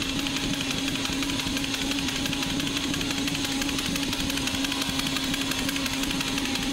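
Echo Classic Rail toy locomotive running around its plastic track. Its electric motor and gears give a steady hum under a rapid, even clatter of wheels and rods.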